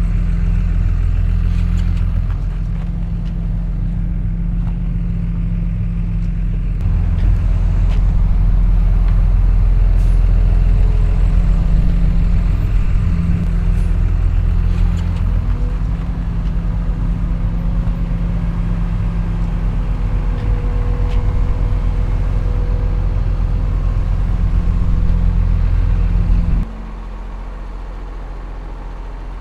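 Heavy earthmoving machine's diesel engine running steadily under load, with a deep rumble; its pitch rises a little about halfway through. Near the end the sound drops suddenly to a quieter engine hum.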